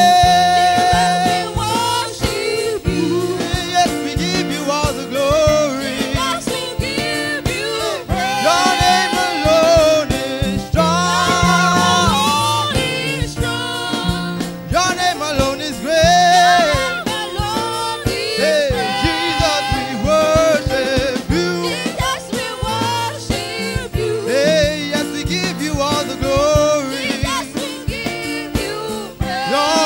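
Live gospel worship song: voices singing a praise chorus over keyboard accompaniment and a steady bass line.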